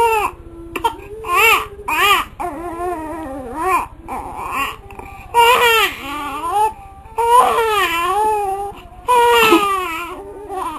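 Infant crying hard, in a run of loud wails with short breaths between them, some brief and shrill, others drawn out and wavering in pitch.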